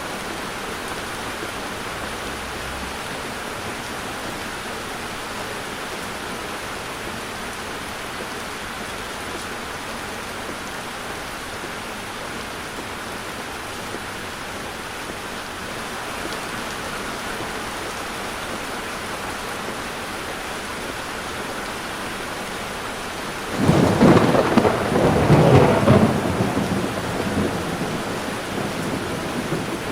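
Steady hiss of heavy rain. About 23 seconds in, a sudden loud rumble of thunder breaks in, strongest for about three seconds, then dies away under the rain.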